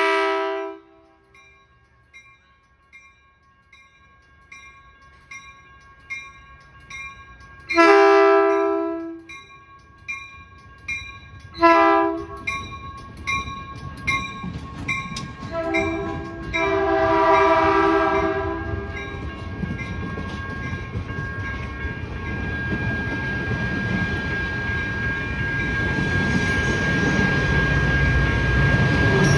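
Caltrain Gallery cab car's horn sounding long and short blasts in the long-long-short-long pattern of a grade-crossing warning, while a crossing bell dings steadily. The double-deck passenger cars then roll past close by, the wheel rumble building louder toward the end.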